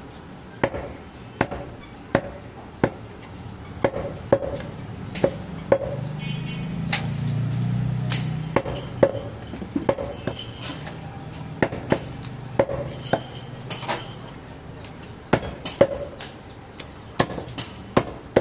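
Heavy curved butcher's cleaver chopping goat meat and bone on a wooden log chopping block: sharp chops at an irregular pace of about one to two a second.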